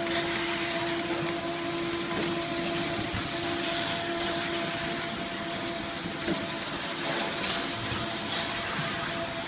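Automatic bowl counting and packaging machine running: a steady whir and hiss of its motors and rollers, with a steady hum that fades about halfway through.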